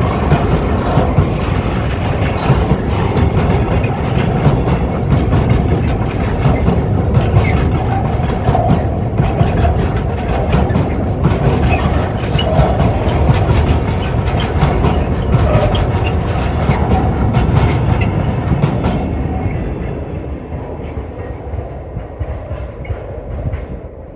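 Freight train of tank wagons rolling past, its wheels rumbling and clicking on the rails. The sound holds steady, then fades over the last few seconds as the end of the train goes by.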